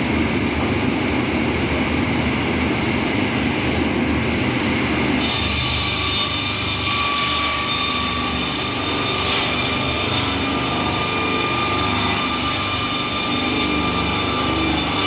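Ts-32 cant-making machine, driven by two 30 kW motors, running loudly and steadily. About five seconds in, a set of high whining tones joins the running noise and holds.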